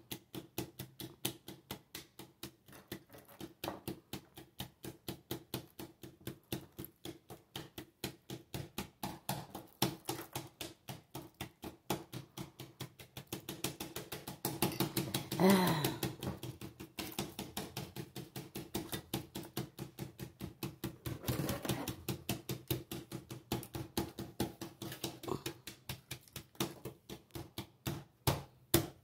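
Rapid, evenly spaced clicking, about five clicks a second, over a faint steady hum.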